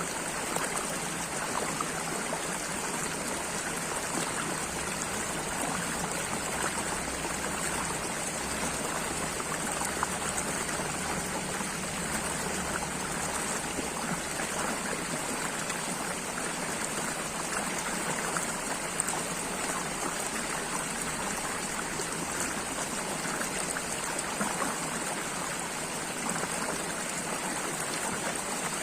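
Water flowing and trickling steadily, like a small stream, with many tiny splashes and drips in an even rush.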